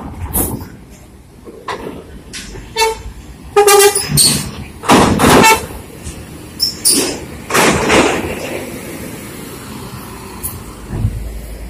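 Large bus horn tooting briefly amid idling bus engines, with several loud rushing bursts of noise over a steady low rumble.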